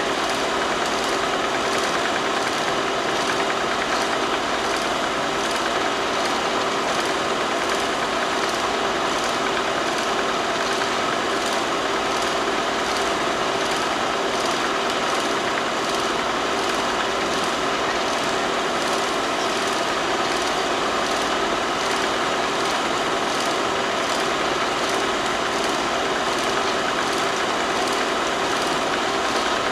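Steady mechanical running of a film projector, a constant whir with a faint regular beat and no change throughout.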